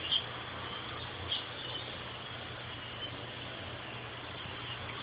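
A small puppy's brief high-pitched squeaks, two close together in the first second and a half and a faint one later, over a steady low background hum.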